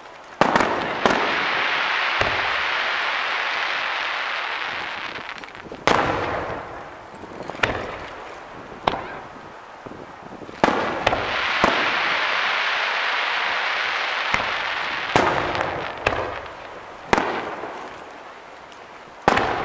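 Aerial firework shells bursting overhead: about ten sharp bangs at uneven intervals. Two long stretches of hiss, each lasting several seconds, follow the bangs near the start and again in the middle.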